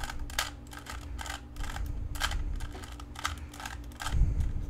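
Plastic Rubik's cube layers clicking as they are turned in quick succession, about three clicks a second, over a steady low hum. There is a low bump near the end.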